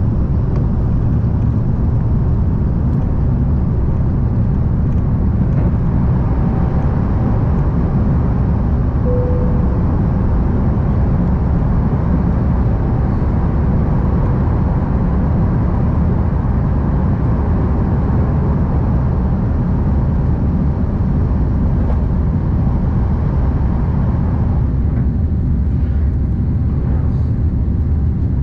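Steady, loud cabin rumble of an Airbus A330-900neo climbing out: Rolls-Royce Trent 7000 engines and airflow heard from inside the passenger cabin. The higher hiss eases a little near the end.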